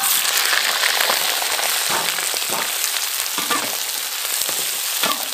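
Raw chicken pieces dropped into hot oil in a wok burst into a sizzle as they land, then keep frying with a steady sizzle while a metal wok spatula stirs them, with a few light scrapes and knocks. This is the stir-fry stage, the chicken searing in oil.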